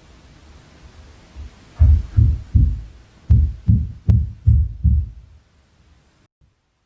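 Impact noise from the flat upstairs coming through the ceiling: a run of about eight dull, low thuds, roughly two or three a second, like heavy footsteps or stomping on the floor above. One thud carries a sharper knock.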